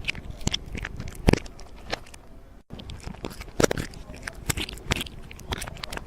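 Irregular crunches and sharp clicks, several a second, over a low steady background, broken by a brief dropout about two and a half seconds in.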